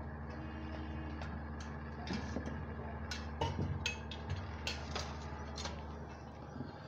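Light clicks and knocks of aluminium window-sash sections being handled and fitted together, scattered through the middle few seconds, over a steady low hum.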